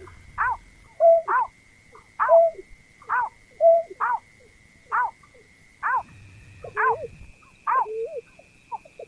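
Berkik (burcet, pekung) bird calls played as a hunting lure: short, sharp calls that bend in pitch, repeating about once a second, sometimes in quick pairs. A faint steady high tone runs underneath and steps up slightly in pitch about six seconds in.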